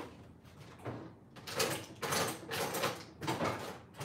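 Rustling and scraping handling noises in several bursts, from about one and a half to three and a half seconds in.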